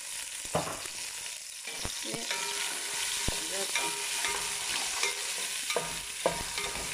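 Sliced onions sizzling in hot oil in a large aluminium pot, with scattered clicks and scrapes of a wooden spoon stirring them against the pot.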